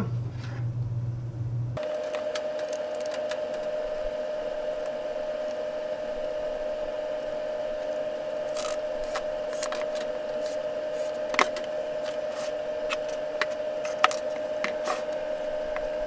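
Scattered light clicks and taps of small screws and metal heater panels being handled and fitted, over a steady hum.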